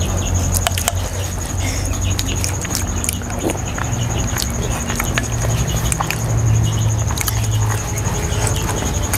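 Spoons clinking and scraping against earthenware bowls, with eating and chewing noises picked up close by clip-on microphones. A steady high whine sits underneath.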